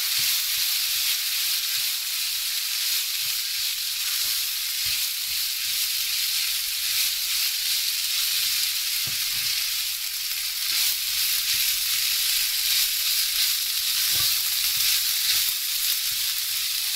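Fried rice and vegetables sizzling in a shallow nonstick frying pan while being stirred and turned with a spatula. A steady high hiss, with occasional light scrapes and knocks of the spatula on the pan.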